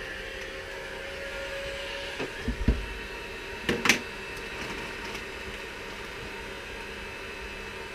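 Handheld heat gun blowing steadily while the final drive housing is heated to fit a frozen bearing. A dull thump comes between two and three seconds in, and a sharp metallic clink comes about a second later.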